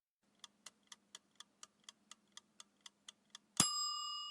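Countdown timer sound effect: about thirteen quick, even ticks, roughly four a second, then a bell-like ding near the end that rings on and fades, marking time up.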